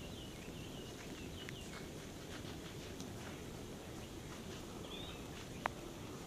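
Faint outdoor ambience: a soft steady hiss with a few faint bird chirps and occasional sharp ticks, the clearest about five and a half seconds in.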